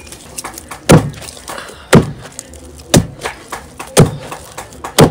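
Long wooden pestle pounding cassava and plantain into fufu in a wooden mortar: one heavy dull thud about once a second, with softer knocks between the strokes as the dough is turned by hand.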